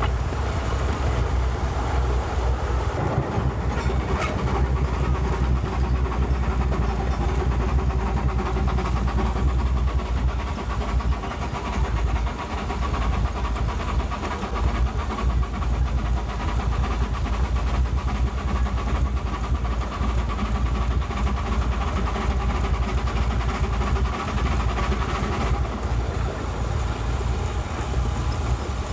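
2-foot gauge park train running along its track, heard from on board: a steady rumble of wheels and running gear.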